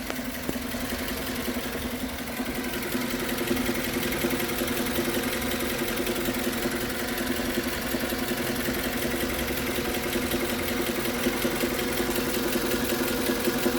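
Suzuki Grand Vitara's 2.4-litre J24B inline-four running with a steady, rapid knock. The knock appears only after the engine is fully warmed and the oil has thinned, and is heard low down near the oil pan.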